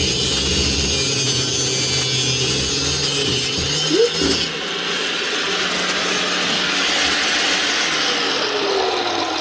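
Angle grinder with a cutoff wheel cutting into a threaded drain pipe, a steady grinding noise. About four seconds in there is a brief louder spike and the low hum drops out, and the grinding continues thinner after it.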